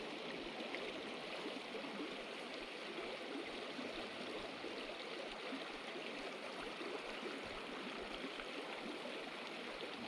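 A small river's current running over rocks: a steady rush of flowing water.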